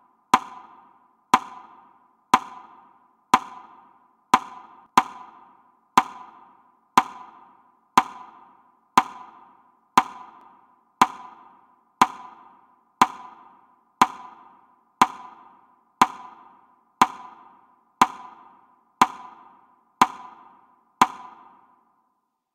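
Metronome ticking about once a second to mark a minute of silence. Each tick is a sharp knock with a short ringing tail. One beat comes early about five seconds in, and the ticking stops near the end.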